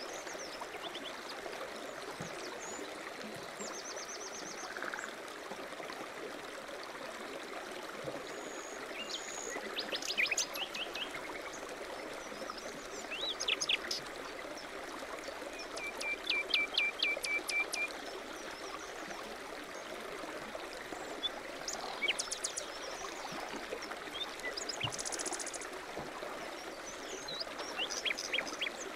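Running water babbling steadily, with small songbirds chirping and trilling over it; several short bird phrases stand out, among them a rapid run of repeated notes about halfway through.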